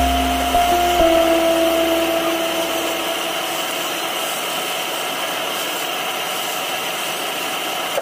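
A wood lathe is running while a hand-held turning chisel cuts a spinning wooden spindle, making a steady rushing noise. A few held background music notes fade out over the first three seconds.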